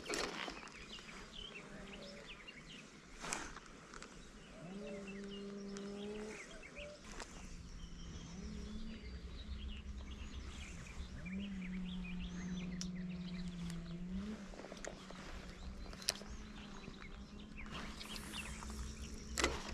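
Small birds chirping throughout, with a low steady hum that sets in around five seconds and again from about eight to fourteen seconds, and a few sharp clicks.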